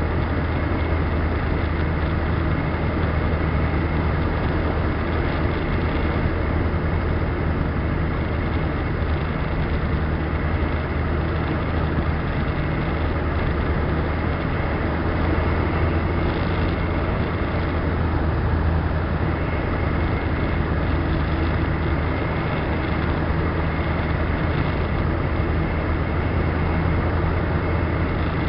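Engine and propeller of a Fantasy 812 ultralight heard from inside the cockpit: a steady low drone with rushing air, held at an even setting on final approach to landing.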